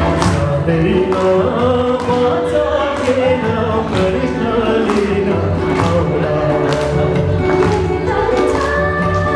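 Live band playing a Nepali song, with singing over a steady beat of drum strokes about once a second, accompanied by tabla and double bass.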